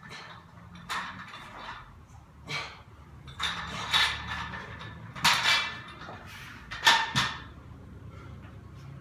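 Loaded barbell with iron plates clanking and rattling as it is brought down from overhead and set on the floor: five or so short metallic clanks, the loudest about two thirds of the way through.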